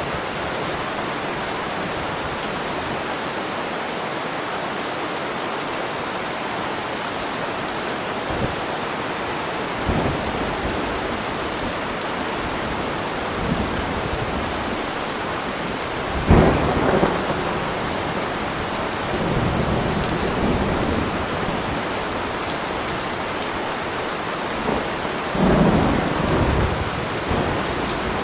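Steady heavy rain with rolls of thunder: a low rumble about ten seconds in, a louder crack and roll about sixteen seconds in that rumbles on for several seconds, and another roll near the end.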